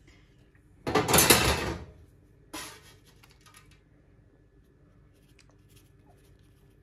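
A metal spatula scraping in a frying pan to scoop up fried onions: one long scrape about a second in, then a shorter one that fades quickly.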